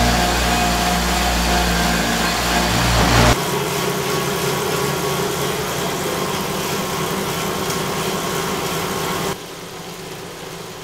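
A road bike ridden hard at 210 W on indoor rollers, with tyres and drums running at steady speed. For about the first three seconds it is on free flat rollers at about 51 km/h: a loud, steady running noise with a deep hum. It then steps down to a noticeably quieter run on a Wahoo KICKR ROLLR, and near the end drops again to a much quieter run on the KICKR ROLLR in ERG mode, turning at only about 17 km/h.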